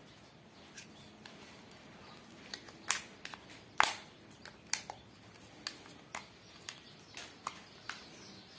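Scattered light clicks and taps from hands working a power cable and a small switch into a little box, about a dozen irregular clicks with two louder ones about a third of the way through.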